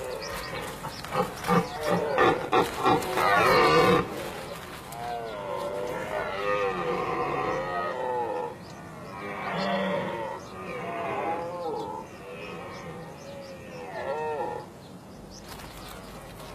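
Red deer stags roaring during the rut. A run of short, loud roars comes in the first few seconds, then several longer calls that rise and fall in pitch.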